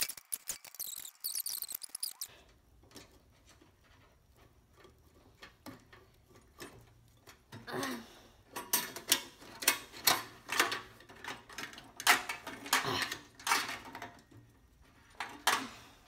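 Hands working over a microwave oven's metal chassis and internal parts. High squeaks in the first two seconds are followed by a quiet spell, then from about eight seconds in a busy run of clicks, clacks and rattles as wiring and parts are handled.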